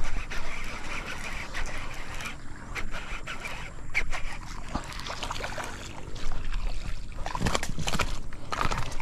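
A hooked snakehead being reeled in on a baitcasting reel and landed: irregular splashing and rustling through weedy shallows and brush, with a steady rumble of wind on the microphone. The knocks and crackles are strongest near the end.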